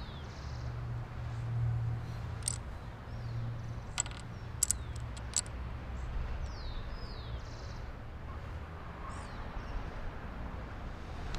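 Domino tiles clicking sharply as they are set down on a table, a few clicks close together around the middle. Small birds give short falling chirps now and then over a low steady hum.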